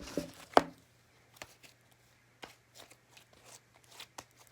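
Slime being kneaded and mixed by hand, giving a string of short, irregular sticky clicks and squelches, with one sharp snap about half a second in.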